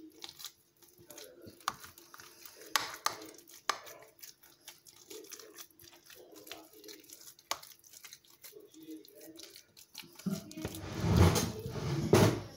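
Light scattered clicks and scrapes of a utensil working mashed potato mixture between a bowl and a glass baking dish, with a louder stretch of knocking and handling near the end.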